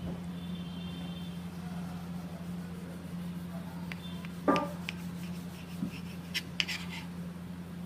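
A kitchen knife sawing through a loaf of soft white bread, with one sharp knock about halfway through as the blade strikes the cutting board, then a few light clicks. A steady low hum sits underneath.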